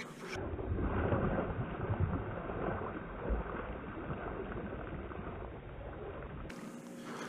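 Wind rumbling on the microphone over splashing water as a hooked snook thrashes at the surface. The noise is heaviest in the first two seconds.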